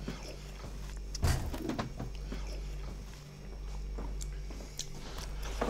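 A spoon knocking and scraping a few times against a ceramic soup bowl as someone eats, the loudest knock about a second in, over a steady low hum of room tone.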